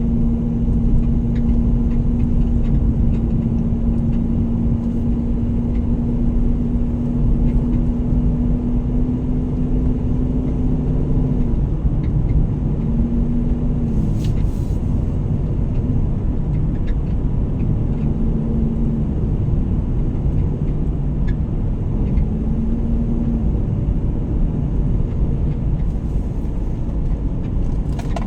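A car on the road: a steady low rumble of road and engine noise, with a steady drone that holds for the first eleven seconds or so, then comes and goes in short stretches.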